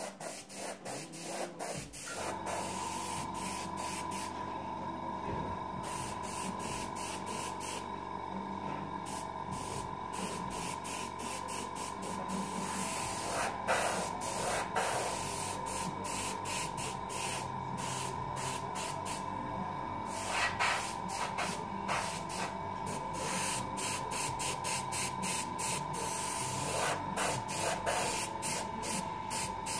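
Airbrush spraying paint in short, rapid hissing bursts as the trigger is worked on and off. A steady hum sets in about two seconds in.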